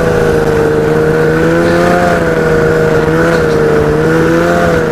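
2000 Ski-Doo MXZ 700 snowmobile's two-stroke twin engine running under way, holding a steady pitch that rises and dips slightly.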